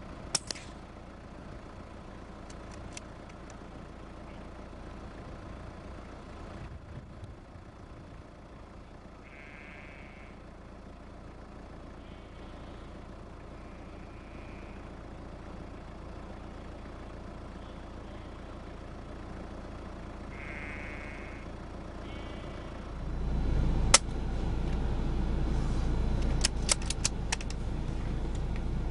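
Quiet field ambience with two short sheep-like bleats about ten and twenty seconds in. Near the end a low rumble swells, then a single flat crack of a moderated .22 rimfire rifle firing subsonic ammunition, followed a couple of seconds later by a few quick faint clicks.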